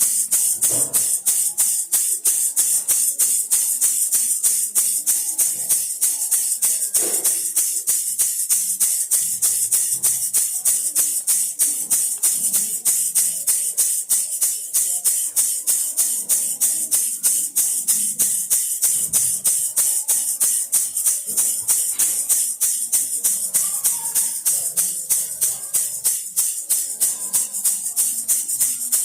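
Baby rattle shaken in a steady, even rhythm of several shakes a second, its beads giving a bright rattling hiss.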